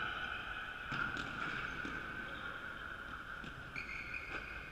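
Running footsteps knocking on a wooden sports-hall floor, with short high squeaks of sneakers and faint shouting voices, all echoing in a large hall.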